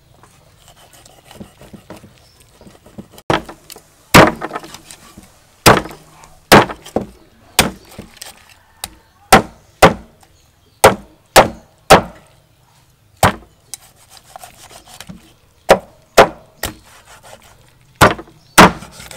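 A heavy cleaver chopping through a large fish onto a wooden chopping block: a series of sharp, irregular whacks, about twenty of them, starting about three seconds in.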